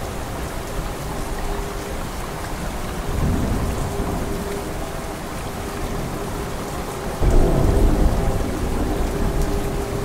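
Heavy rain falling steadily, with rolling thunder: a low rumble swells about three seconds in, and a louder thunderclap breaks in suddenly about seven seconds in and rumbles on for a couple of seconds.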